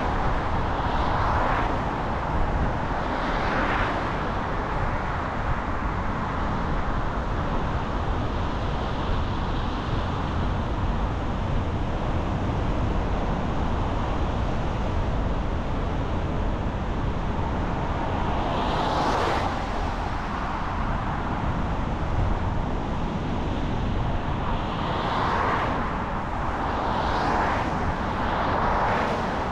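Car driving on a road: a steady rumble of tyre and engine noise, with several brief whooshing swells of noise along the way.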